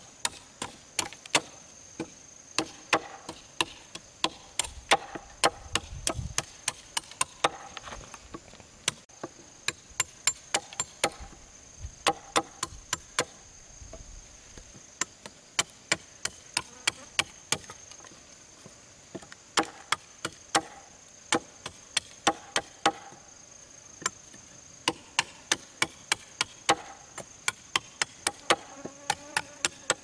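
Rapid, irregular sharp blows of a hand tool on bamboo, two or three a second with brief pauses, over a steady high drone of forest insects.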